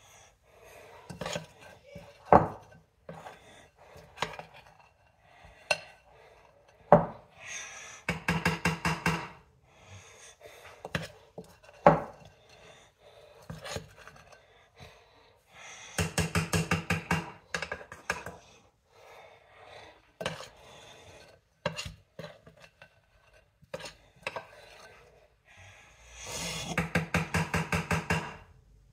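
A utensil striking a mixing bowl, as when stirring or beating batter. There are three bursts of rapid, even clinks, about ten a second, with a few single sharper knocks between them.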